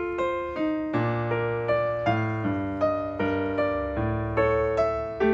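Background music: a gentle piano melody, a new note about every half second over lower notes that change roughly once a second.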